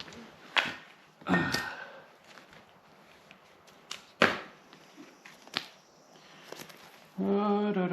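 A few sharp knocks and snaps with a short scraping rustle: hands rigging a strap around the Jeep's drive shaft to hold up its fuel tank.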